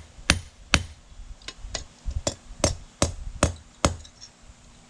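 Hand hammer striking hot steel on an anvil in a steady run of ringing blows, about two a second, with a brief pause near the end, as the screwdriver tip's edge is thinned.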